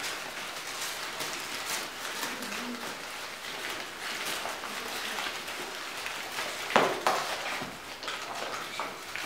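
Aluminium foil and paper wrappers being crumpled and unwrapped by several children's hands, a continuous crinkling crackle, with one louder knock about seven seconds in.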